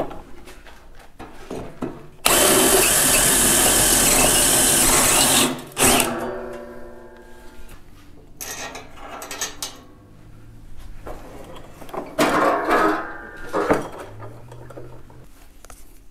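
A power tool runs hard for about three seconds, starting and stopping abruptly, with quieter shop handling noise around it and a second, shorter and weaker run about twelve seconds in.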